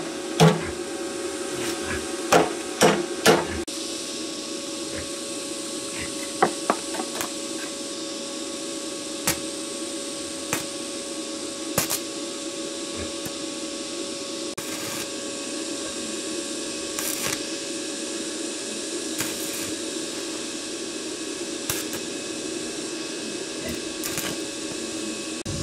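Hammer blows on metal, four in quick succession in the first few seconds, then occasional single knocks, over a steady machine hum.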